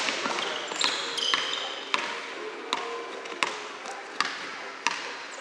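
Basketball dribbled on a hardwood gym floor, a sharp bounce roughly every 0.6 to 0.8 seconds, with short high squeaks of sneakers on the court between the bounces.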